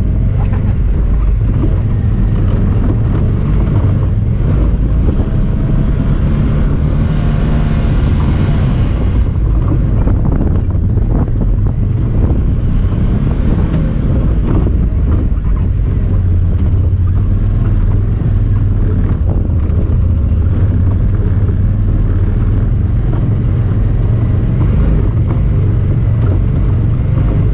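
Honda Talon 1000R side-by-side's 999 cc parallel-twin engine running steadily while driving, a low continuous drone with frequent short knocks and rattles.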